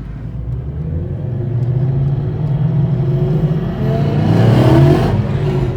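Ford Mustang Boss 302's 5.0-litre V8 heard from inside the cabin while driving. About four seconds in it revs up hard, its pitch climbing quickly and getting louder, then the revs fall away just after five seconds.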